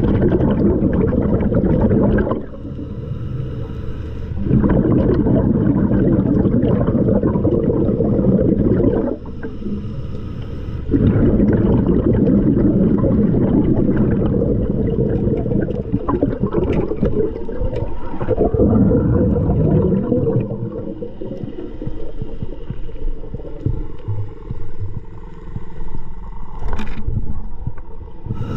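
Scuba diver breathing through a regulator underwater: long loud bubbling rushes of exhaled air, broken by shorter quieter pauses while breathing in.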